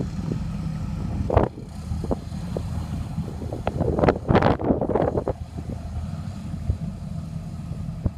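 Steady low rumble of a motor yacht's twin engines manoeuvring, with gusts of wind buffeting the microphone about one and a half seconds in and again around four to five seconds in.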